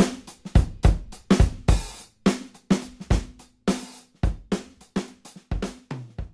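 Background music: a drum kit playing a steady beat, its strikes coming about twice a second.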